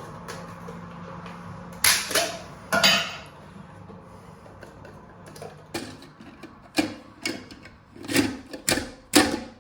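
Toilet cistern fill valve being fitted by hand: a series of sharp clicks and knocks of the valve's parts against each other and the cistern.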